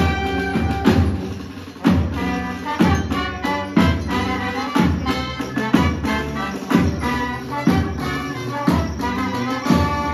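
Live street band of brass and drums playing a dance tune, with a heavy drum beat about once a second under the brass melody.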